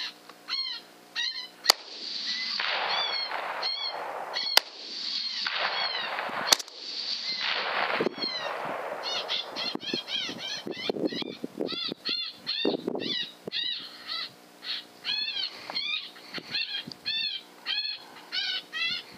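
Coyote yelping and howling: long wavering wails for the first half, then a rapid run of short rising-and-falling yips. Three sharp clicks stand out early on.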